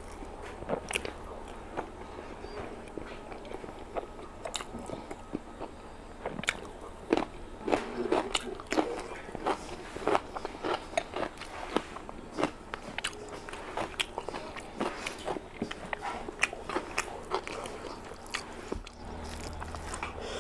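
Close-miked eating of curried egg and rice: chewing with many short, irregular wet mouth smacks and clicks.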